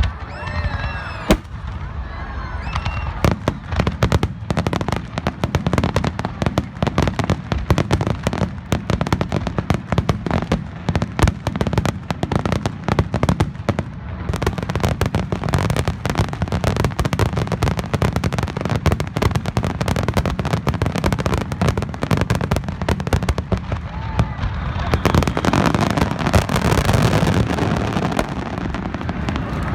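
A rapid fireworks barrage: a couple of rising whistles, then many sharp bangs in quick succession, ending in a dense crackling shower near the end.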